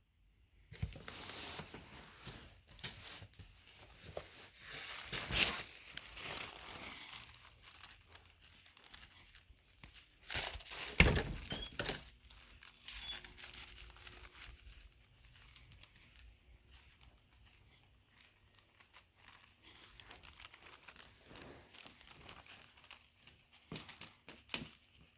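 Packaging crinkling and rustling as a new handbag is unwrapped by hand, with louder crackling peaks about five and eleven seconds in and quieter, scattered rustling in the second half.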